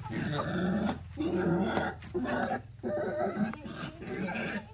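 Wild boar grunting and crying in a run of low calls about a second each, broken by short pauses, as it is caught and held.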